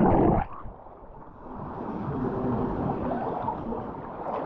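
Loud rush of water on a water slide that cuts off suddenly about half a second in, then a softer, muffled water noise.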